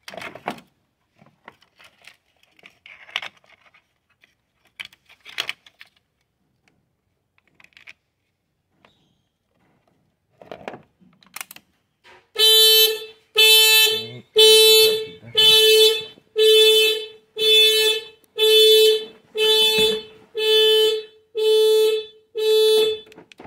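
Car alarm going off as the portable jump starter's power reaches the flat battery: a loud, steady-pitched honk repeated about eleven times, roughly once a second, starting about halfway through. Before it, scattered light clicks and rattles of the jump-starter clamps being handled on the battery.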